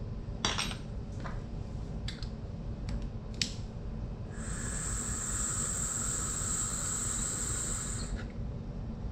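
Glass dab rig: a few light clinks, then about four seconds of steady airy hissing with a thin whistle as a hit is drawn through it, stopping sharply near the end.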